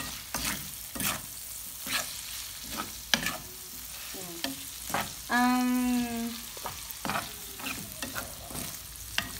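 Pork cubes sizzling in hot oil in a frying pan, stirred with a spoon that scrapes and knocks against the pan at irregular intervals. About five seconds in, a person's voice holds one note for about a second.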